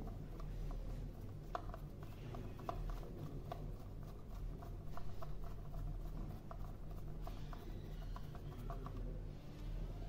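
Hand screwdriver turning a small screw into the metal back plate of a ZKTeco ML100 smart lock's outdoor unit: faint scraping with scattered small clicks.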